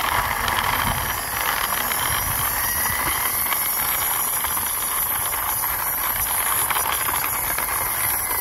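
Plastic toy car pushed by hand along a rough concrete wall, its wheels rolling with a steady rushing noise.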